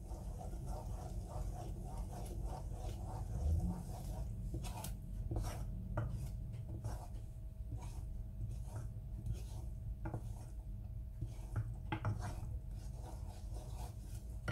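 Wooden spoon stirring a cream sauce in a saucepan, with irregular scrapes and light taps against the pan over a low steady hum.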